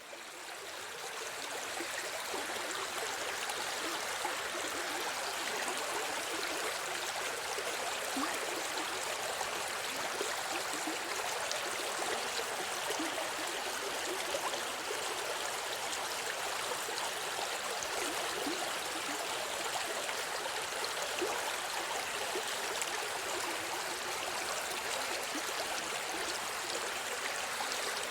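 A river flowing steadily: a continuous rushing of water with small gurgles, fading in over the first couple of seconds.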